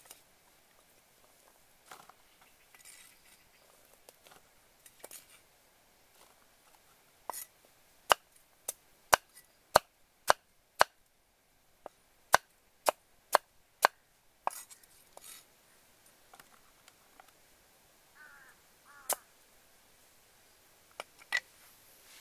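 Cleaver chopping sweet potato on a wooden chopping block: a run of about ten sharp chops, a little over one a second, through the middle, and a couple of single chops later on. Softer knocks of pieces being handled and moved come before and between them.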